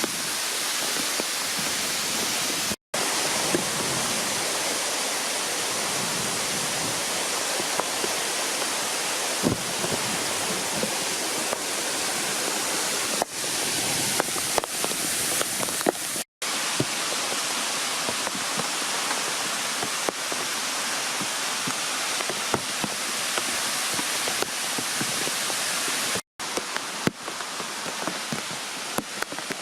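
Waterfall rushing steadily, a dense roar of falling water that cuts out for an instant three times at edit splices.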